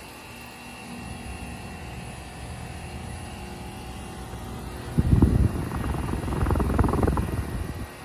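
Trane heat pump outdoor unit running: its condenser fan and compressor give a steady whooshing hum with a faint whine. From about five seconds in, a couple of loud low rumbles break over the hum.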